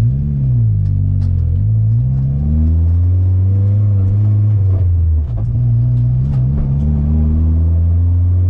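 Turbocharged Mazda Miata's four-cylinder engine pulling hard under boost. Its pitch climbs, drops briefly at a gear change about five seconds in, then climbs again.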